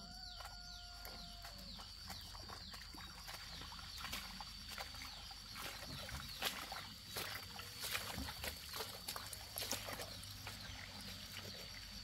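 Leaves and stems rustling and crackling, with footsteps, as people push through dense field plants, over a steady high insect drone. A brief held call sounds in the first second or so.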